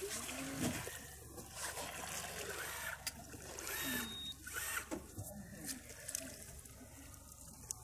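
Water lapping and trickling against the side of a small fishing boat, with a few light clicks.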